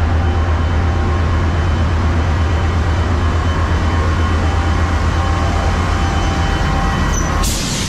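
Metrolink diesel locomotive running beside the platform, its engine giving a steady low drone. A short burst of hiss comes near the end.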